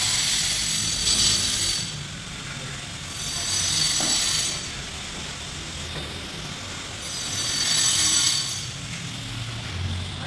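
A power tool running with a high hissing whir that swells three times, each surge lasting one to two seconds.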